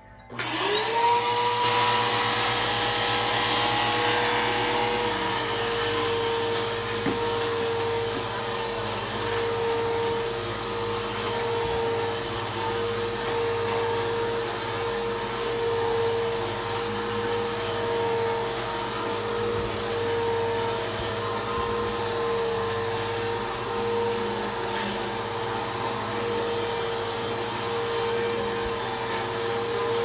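Bissell PowerForce Helix upright vacuum cleaner switched on just after the start, its motor spinning up to a steady whine within about a second. It then runs steadily as it is pushed over a rug.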